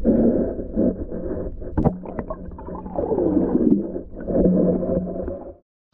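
Muffled underwater sound picked up by a camera submerged in the lake: water sloshing and gurgling against the housing over a steady low hum, with a falling moan about three seconds in. It cuts off abruptly just before the end.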